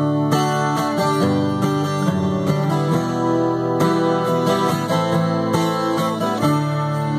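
Acoustic guitar strummed through a chord progression, the chords ringing on between strokes.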